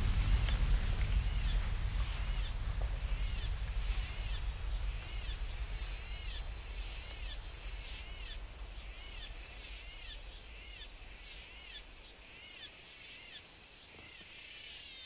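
Rainforest ambience: a steady high insect drone with a short arched chirp repeating about once a second. A low rumble underneath fades away over the first half.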